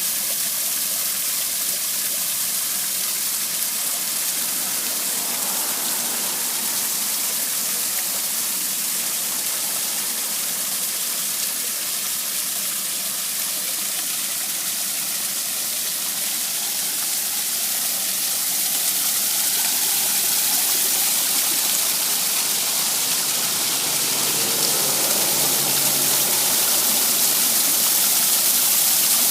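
Water from an artificial rock waterfall splashing down in a steady rushing stream, growing a little louder in the second half.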